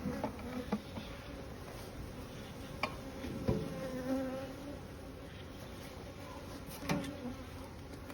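Honeybees buzzing around a hive, a wavering hum, with a few sharp knocks scattered through it, the loudest about halfway and near the end.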